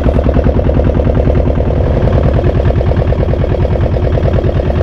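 Small boat's engine running with a fast, even pulse as the boat moves off to a new spot.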